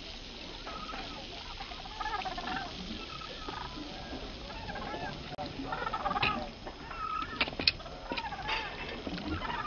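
A flock of seabirds calling over a feeding frenzy: many overlapping harsh, wavering calls, over the steady noise of wind and water. A few sharp cracks come about seven and a half seconds in.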